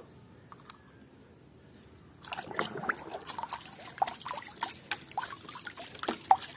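Water splashing and sloshing in a plastic tub as a hand swishes a muddy toy through it, starting about two seconds in. Before that, only a few faint clicks.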